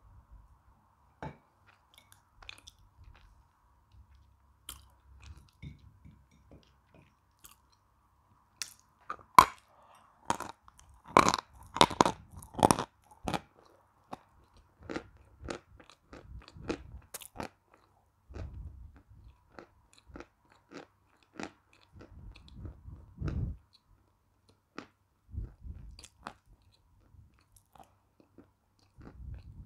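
Edible chalk being bitten and chewed right at a lavalier microphone: sharp, crisp crunches, densest and loudest about ten to thirteen seconds in, giving way to softer, duller chewing later on.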